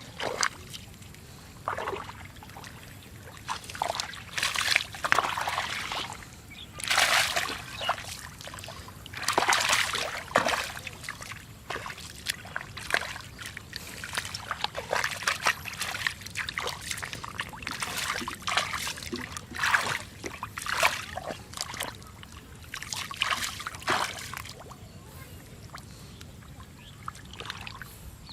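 Hands splashing and sloshing through shallow muddy water while groping for catfish, in irregular bursts that die away over the last few seconds.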